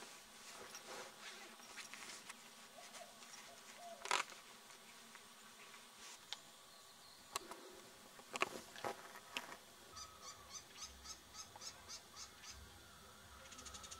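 Wild birds calling: scattered short sharp chirps, then about ten seconds in a rapid series of high notes, about four a second.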